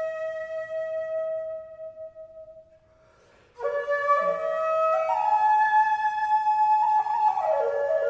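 Background music: a flute holds one long note that fades out, and after a short pause a new phrase of stepping notes begins.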